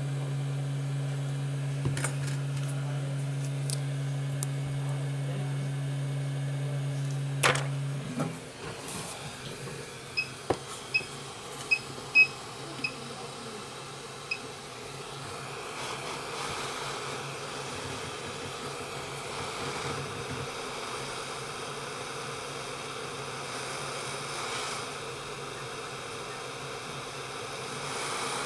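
A steady low hum cuts off with a couple of clicks. Then a rework station gives a quick run of about seven short electronic beeps, and a hot air gun starts blowing with a steady rushing hiss, used for heating the U2 charging chip area of an iPhone 5s logic board.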